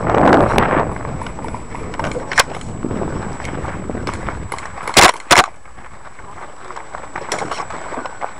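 Footsteps crunching on a dirt trail with gear and clothing rustle. A loud rustle comes at the start, and two sharp cracks come close together about five seconds in.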